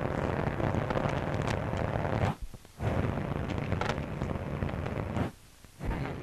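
Loud, steady rushing noise with a few faint clicks, cut out twice by short gaps of near silence about two and a half seconds and five and a half seconds in.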